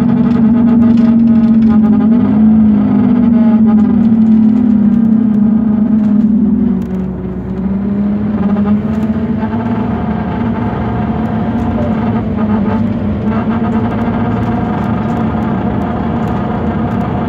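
Scania K230UB city bus heard from inside while driving: a loud, steady droning hum with overtones, wavering a little and dropping slightly in pitch and level about seven seconds in. It comes from a bus with a fault its owner could not identify.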